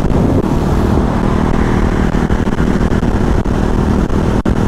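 KTM motorcycle engine running steadily at highway cruising speed, heard from the rider's seat, with wind rushing over the microphone.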